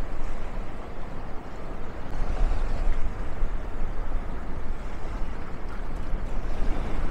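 A steady, rumbling wash of outdoor noise, loudest in the low end and rising and falling in loudness, with no clear tone or single event.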